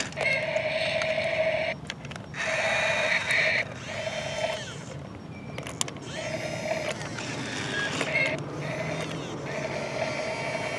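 Electric gear motors of a Toy State CAT remote-control toy excavator whirring in short stop-start runs as the boom, arm and bucket are driven, with brief pauses about two seconds in and around five seconds in.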